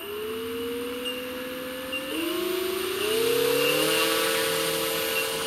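Electric brushless outrunner motor (5060-size, 360 kV) turning a 17x10 four-blade propeller on a large RC P-47 Thunderbolt, a steady whine that steps up in pitch about two seconds in and again a second later as the throttle is opened for the takeoff run.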